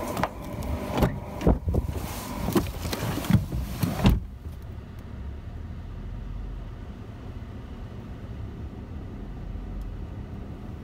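Car door opened and a person climbing into the driver's seat, a series of knocks and clatter, ending with the door slammed shut about four seconds in. After that, a muffled low steady hum inside the closed car cabin.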